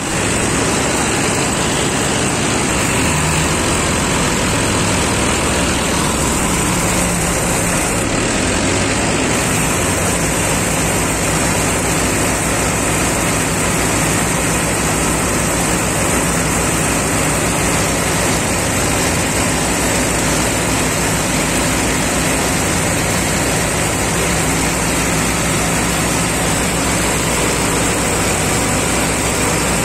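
Mahindra Novo tractor engine running steadily with its belt-driven machinery turning, a constant mechanical drone that does not change in level.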